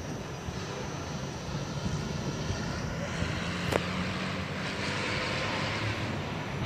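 Steady low engine drone of motor traffic, swelling slightly in the second half, with a single sharp click about halfway through.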